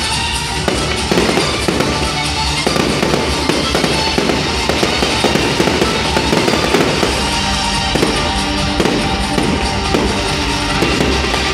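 Aerial fireworks display: a dense run of shell bursts with crackling stars, popping many times a second, over music.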